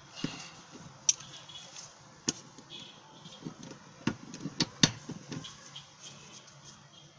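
A few sharp, irregularly spaced clicks and knocks from hand tools at work on a car seat's mounting bolts, loudest about a second in and a cluster between four and five seconds in.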